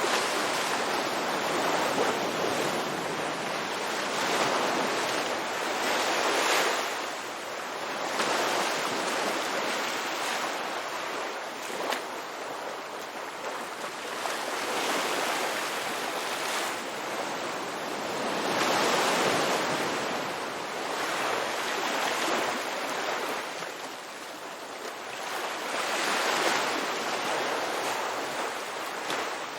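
Ocean waves breaking and washing on a beach, in rolling swells of surf every few seconds.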